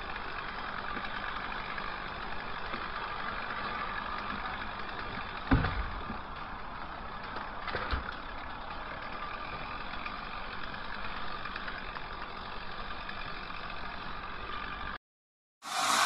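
Chainsaw running steadily at a low, even speed while a trunk is cut down in sections from the top, with a brief louder burst about five and a half seconds in and another shorter one near eight seconds.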